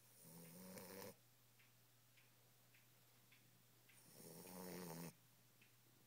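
Boxer puppy snoring in its sleep: two snores, one near the start and one about four seconds in, each building over about a second and then stopping abruptly.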